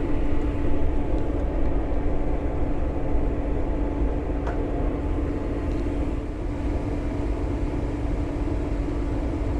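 Vehicle engine running at a steady drone, with a low rumble underneath.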